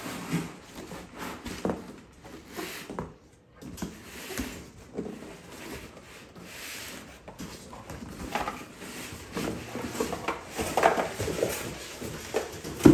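Rubbing, rustling and scraping of a shipping box and its packing being opened and unpacked by hand, with irregular handling knocks. A sharp knock near the end is the loudest sound.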